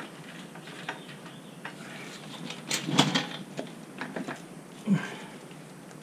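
Scattered light metal clicks and knocks as the rear wheel, chain and chain adjusters of a BMW F850GS motorcycle are worked on by hand, with a louder clatter about three seconds in and a duller knock near the end.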